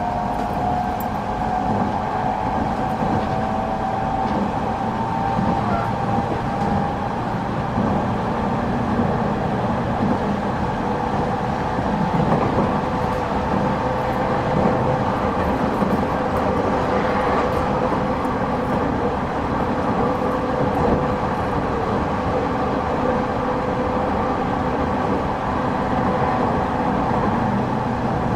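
Running sound inside a JR East 209 series 2200-subseries electric train between stations: steady wheel-on-rail noise with a faint electric motor whine whose pitch shifts as the train runs.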